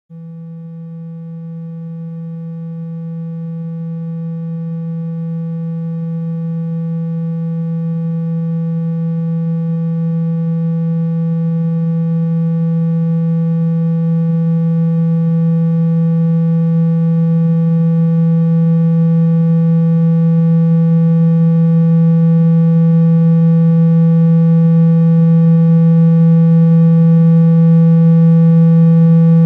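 A single steady low electronic tone that grows gradually louder: a speaker-cleaning tone played to shake dust and water out of a phone's speaker.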